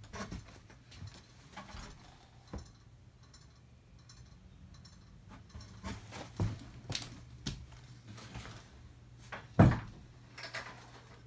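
Scattered knocks and thumps in a small room, with a louder, sharper thump near the end, over a faint steady low hum.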